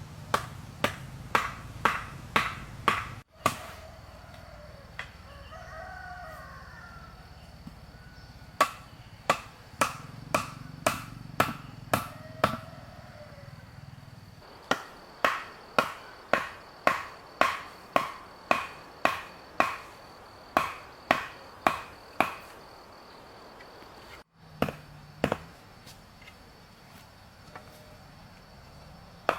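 Rhythmic chopping strokes, about two a second, in runs of several seconds with pauses between them. A rooster crows once in the first pause.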